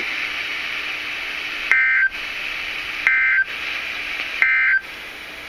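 Emergency Alert System end-of-message data signal: three short bursts of raspy two-tone digital data about 1.3 seconds apart, over steady radio hiss. It marks the end of the tornado warning message.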